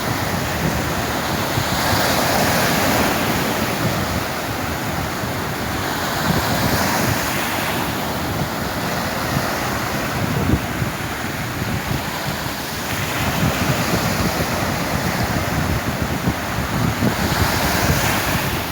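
Sea waves washing onto the shore, a continuous rush that swells several times as waves break, with wind buffeting the microphone.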